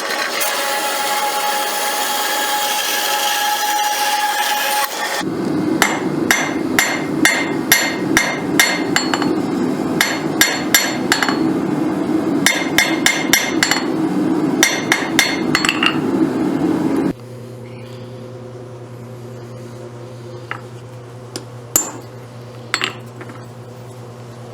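A bandsaw cutting through a steel bolt for about five seconds, then hammer blows on the heated bolt end against the anvil, about two a second with a ringing strike each time, flattening it. For the last several seconds there is a quieter steady low hum with a few light clicks.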